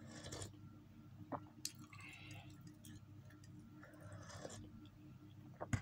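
Several quiet sips of hot coffee from a ceramic mug, with a few faint clicks in between.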